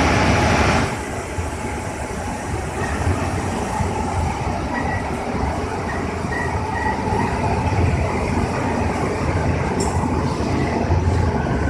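Kerupuk (cracker) drying machine running: a steady mechanical rumble with faint intermittent squeaks. A louder hiss in the first second drops away.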